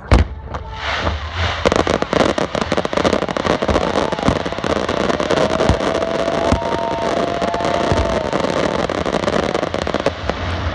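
Aerial fireworks display: a loud shell burst at the start, followed by dense, continuous crackling and rapid popping from many bursting shells and crackling stars.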